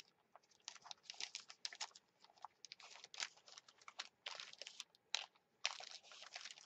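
Faint crinkling and tearing of lined notebook paper under fingers, as the pages are picked at and pulled near the binding: quick irregular crackles, with a longer crackle near the end.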